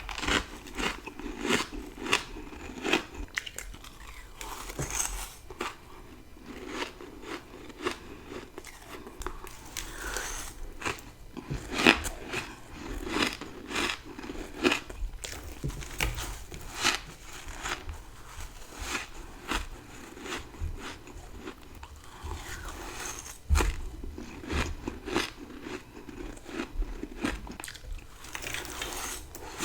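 A person biting and chewing dry freezer frost grown with a humidifier, close to the microphone. There is a steady run of crisp crunches, several a second, with one louder bite about halfway through.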